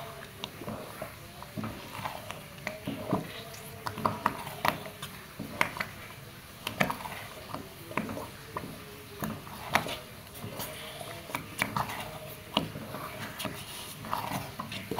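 A spoon stirring thick, cooking sago-flour batter in a non-stick pot, with irregular sharp knocks and scrapes as the spoon hits the pot.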